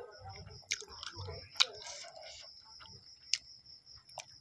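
Close-miked eating sounds: a person chewing a battered fried egg, with wet lip smacks and a few sharp mouth clicks, the loudest about a second and a half in and again after three seconds.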